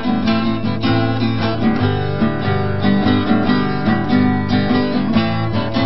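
Background music: acoustic guitar strumming steadily.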